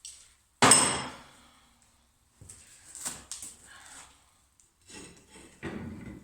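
Metal parts and tools being handled: one sharp clank about half a second in that rings on for most of a second, then lighter knocks and clatter.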